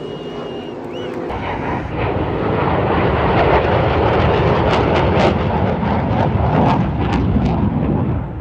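Loud, steady engine noise that builds over the first couple of seconds, holds, then cuts off abruptly.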